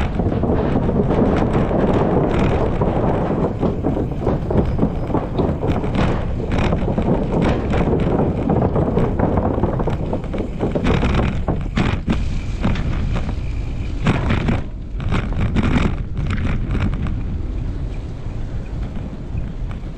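Wind rumbling on the microphone of a moving bicycle, with a steady run of knocks and rattles as the tyres roll over the wooden planks of a bridge deck. In the second half the tyres roll on a gravel road.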